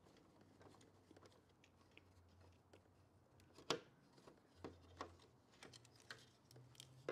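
Very quiet, faint clicks and small scrapes of a hand screwdriver backing a silver screw out of a plastic sensor bracket, with one sharper click about three and a half seconds in and a few lighter ones after it.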